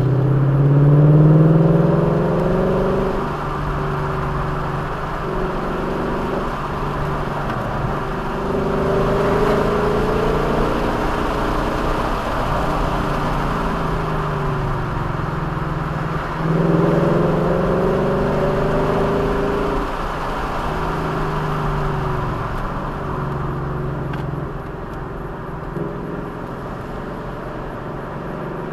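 Vehicle engine under way, its pitch rising as it accelerates about three times, roughly every eight seconds, and falling back as it eases off in between, over steady road and wind noise.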